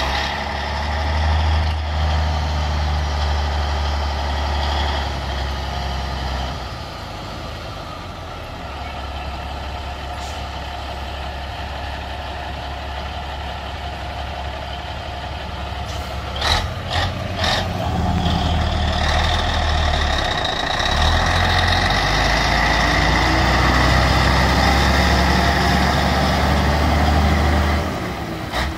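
Freightliner semi tractor's diesel engine running as it pulls a loaded lowboy trailer out and drives past, growing louder as it comes close in the second half. A quick series of sharp bursts comes a little past the middle.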